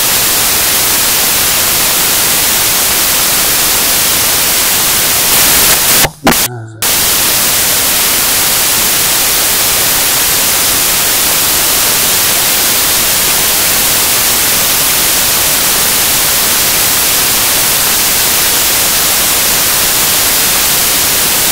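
Loud, steady static hiss, like white noise, filling the whole audio track. It breaks off once, briefly, about six seconds in, when a short snatch of voice comes through.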